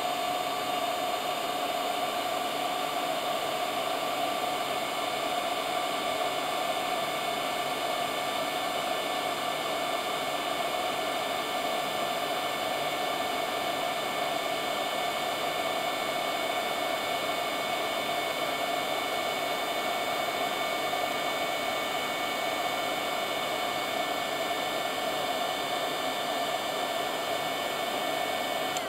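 Heat gun running steadily, a constant rush of air with a whine, blowing hot air up under an LED's star heatsink to melt the solder beneath the LED. It cuts off at the very end.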